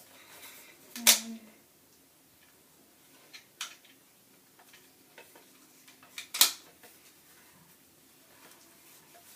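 Sharp plastic clicks and knocks from handling an airsoft gun: two loud clicks about five seconds apart, with a few fainter clicks between them.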